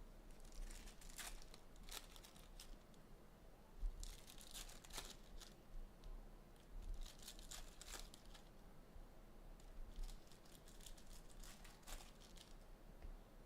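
Basketball trading-card packs being torn open, their wrappers rustling and crinkling faintly in several short bursts.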